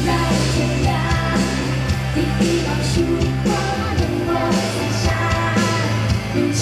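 Live pop-rock band music played over a PA: drums, bass and guitar keeping a steady beat, with a singer's voice over them.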